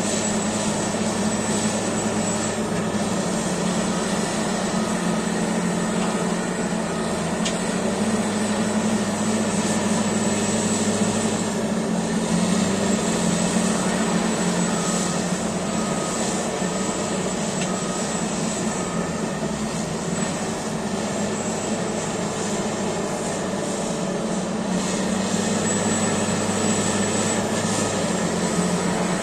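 Caterpillar D8T bulldozer's diesel engine running steadily, a heavy low drone that swells a little and eases off at times, with a thin high whine on top.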